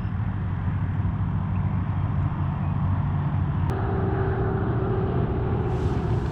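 A motor runs steadily with a low hum. About three and a half seconds in there is a sharp click, and a higher steady tone joins the hum.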